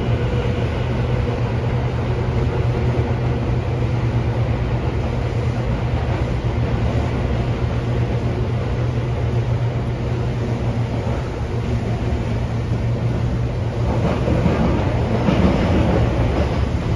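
Running noise inside the car of a Tobu 9000 series chopper-controlled electric train in a subway tunnel: a steady low hum over the rumble of wheels on rail. Faint steady tones fade out over the first few seconds, and the rail noise grows louder and rougher a few seconds before the end.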